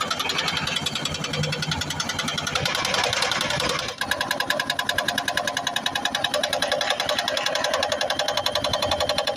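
Excavator's diesel engine running with irregular knocks, then, about four seconds in, its hydraulic breaker starts hammering stone in rapid, even strikes.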